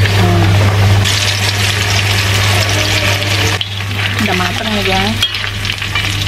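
Flour-coated chicken pieces deep-frying in hot oil in a wok, a steady loud sizzle, while a wire spider strainer stirs and turns the pieces.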